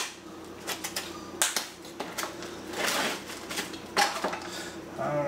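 Kitchen scissors snipping open a plastic meat package: a few sharp snips, the loudest about a second and a half and four seconds in, with crinkling of the plastic in between.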